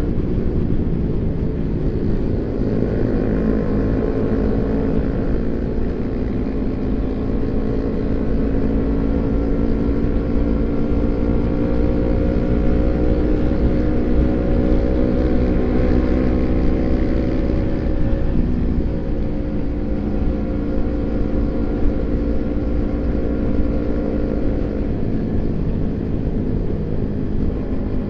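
Kawasaki Ninja 250 FI's parallel-twin engine running through a CLD Monster racing exhaust while riding, at a fairly steady speed. The note rises a little past the middle and eases back down.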